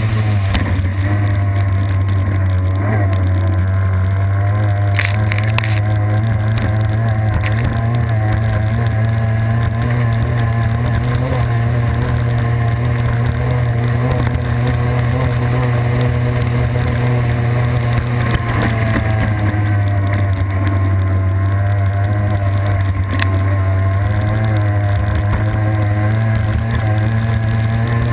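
Racing boat's engine running hard at speed, heard from an onboard camera at water level along with rushing water and wind. The engine note wavers, dipping briefly and climbing back about two-thirds of the way through.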